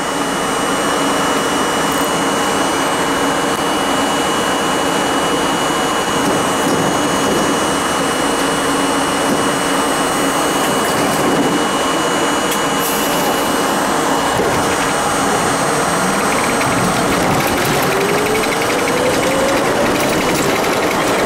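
R32 subway train standing at a platform with a steady mechanical hum and fan-like noise, then pulling out. In the last few seconds a whine rises in pitch as the train accelerates into the tunnel.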